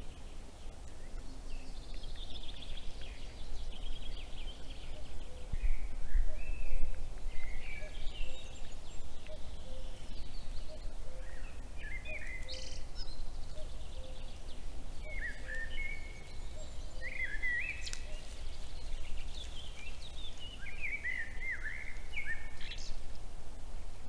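Several songbirds singing, phrase after phrase, over a steady low rumble on the trail camera's microphone, with a dull low bump about six seconds in.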